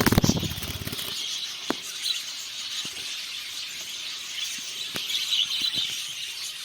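Budgerigars give a loud, rapidly pulsing rasping squeal in the first second. After it a steady background of budgie chatter runs on, with a few sharp clicks.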